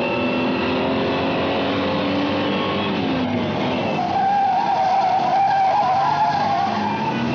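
Opel Commodore GS/E's straight-six engine running hard, its revs rising and falling. From about four seconds in, the tyres squeal for about three seconds as the car takes a bend at speed.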